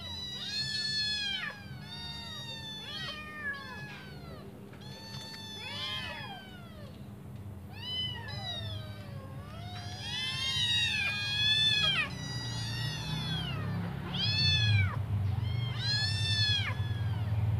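A litter of five young kittens meowing over and over, their high calls overlapping, each rising and falling in pitch: hungry kittens calling for their mother to come and feed them. A low hum rises behind them in the second half.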